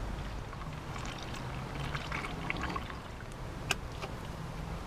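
Engine coolant being poured from a plastic jug into the jet ski's coolant reservoir, with light scattered clicks and one sharp click near the end.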